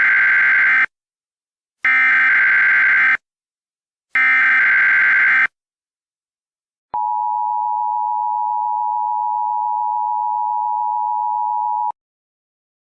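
Emergency Alert System SAME header: three data bursts of about a second each, a second apart, then after a short pause the steady EAS two-tone attention signal for about five seconds, announcing an alert message.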